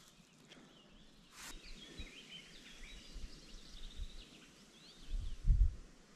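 Small birds chirping and twittering in a run of short high calls, over a faint outdoor background. A sharp click comes about a second and a half in, and a low thump near the end.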